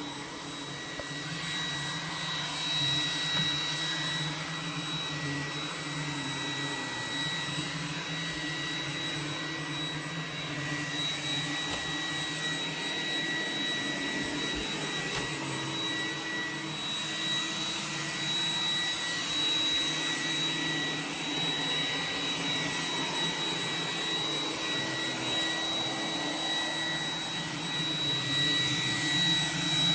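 iRobot Roomba 980 robot vacuum running as it cleans: a steady fan rush with a constant high whine and a low hum.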